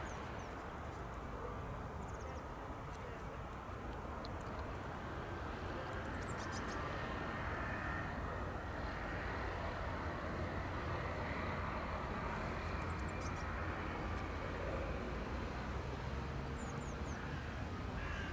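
Steady low rumble of outdoor street ambience, like distant traffic, with a few faint, short high chirps about a third of the way in, past the middle and near the end.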